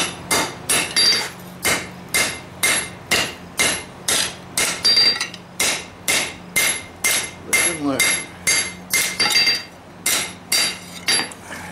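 Hand hammer beating hot lawnmower-blade steel on an anvil. The blows come steadily, about two to three a second, each with a bright metallic ring.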